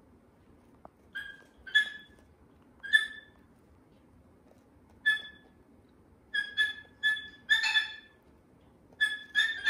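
White cockatoo giving short, high chirping whistles, singly and in quick runs of two or three.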